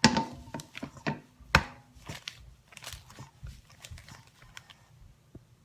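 A utensil knocking and scraping against a mixing bowl while flour and water are stirred into a dough. The knocks are irregular, loudest at the start and about a second and a half in, with a brief ring from the bowl after the first, and they thin out near the end.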